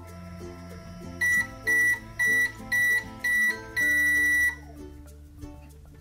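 Toy microwave's end-of-cycle timer beeping: five short high beeps followed by one longer beep, over background music.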